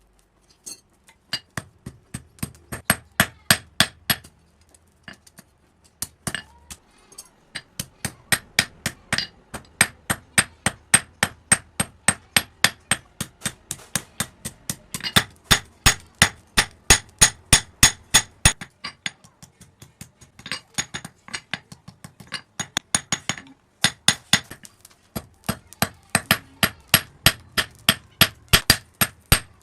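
Blacksmith's hand hammer striking steel on an anvil while forging a small knife blade, in quick even runs of about three to four blows a second with short pauses between runs; the blows ring high.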